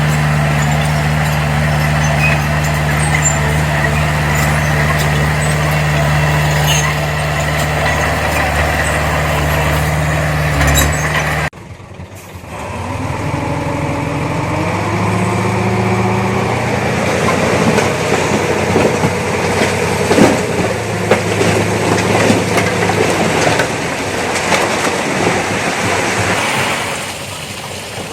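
Heavy earthmoving machinery's diesel engines. First a steady engine drone, then, after an abrupt break about a third of the way in, an engine revving up and down under load with scattered knocks and clatter.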